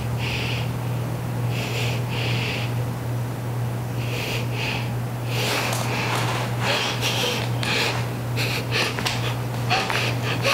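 A woman gagged with tape breathing hard through her nose in separate puffs, then from about halfway faster and mixed with rustling and muffled sounds as she struggles against her bonds. A steady low hum runs underneath.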